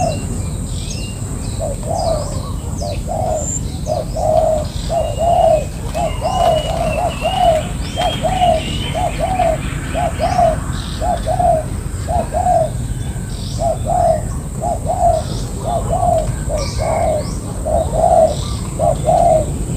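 Spotted doves cooing over and over in short runs of two or three notes, with small birds chirping higher up in the background.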